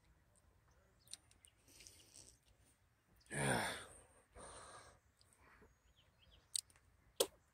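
A man's groan-like sigh falling in pitch about three seconds in, followed by a breathier exhale, a reaction of disgust after licking dirt off a silver coin. Two sharp clicks near the end.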